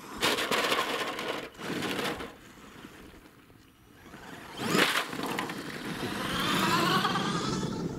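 Axial SMT10 electric RC monster truck driving on gravel: two bursts of tyres crunching over the stones as it accelerates, then a sharp loud pass close by just before the middle, followed by a wavering electric motor whine that rises and falls as the truck runs about near the end.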